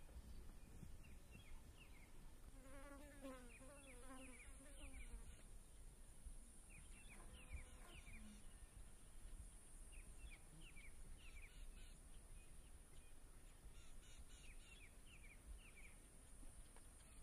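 Faint natural ambience: a steady high-pitched insect drone, with clusters of short falling bird chirps through it. A lower wavering animal call comes in about two and a half seconds in and lasts a couple of seconds.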